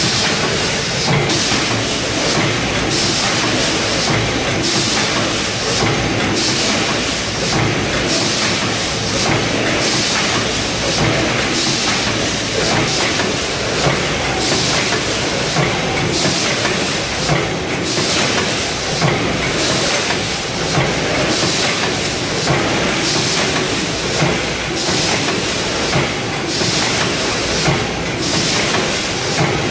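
Rotary premade-pouch packing machine running in production, a continuous mechanical clatter with a regular, evenly spaced beat as the turntable indexes the bags from station to station.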